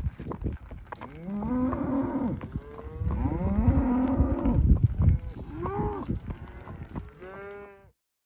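Herd of cows and calves mooing while being driven along a paved road: four long calls, the last one higher-pitched. The sound cuts off suddenly just before the end.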